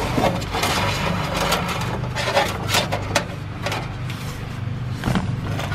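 Wire being pulled and fed through the sheet-metal trunk lid by hand, with rubbing, scraping and scattered clicks of handling over a steady low hum.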